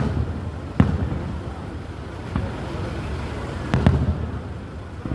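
Fireworks bursting: four or five sharp bangs at uneven intervals, the loudest about a second in and again near the four-second mark, each followed by a low rumble.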